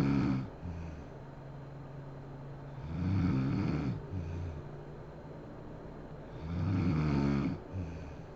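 A sleeping woman snoring loudly in a slow rhythm: one snore fades out at the start, and two more swell and fade about three and seven seconds in, with a quieter low drone between them.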